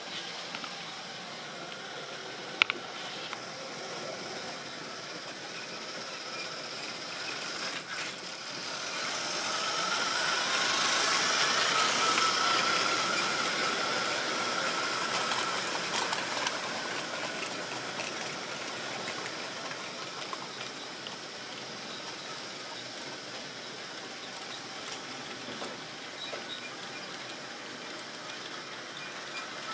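Model railway train running on its track, growing louder as it passes close by about ten seconds in, then fading, with a whine and a rattling run of wheels over rail. A single sharp click comes near the start.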